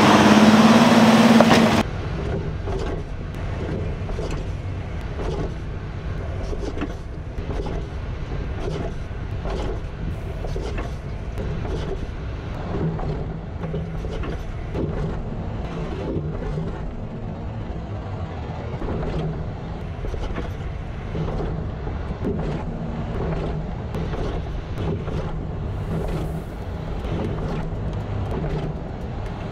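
Driving noise from under a 5th-gen Toyota 4Runner, picked up at the rear suspension: a steady rumble of road and wind with many small knocks and rattles as the axle works over bumps. A brief louder, brighter sound opens it for the first couple of seconds.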